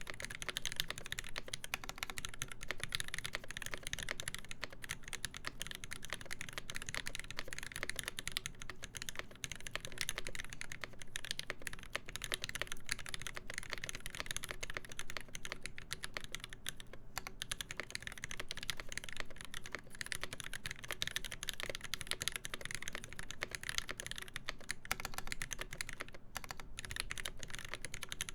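Continuous fast typing on a KBD8X MKII mechanical keyboard with a full brass plate, lubed Alpaca linear switches and GMK keycaps, a dense stream of keystrokes with a short pause about nine seconds in.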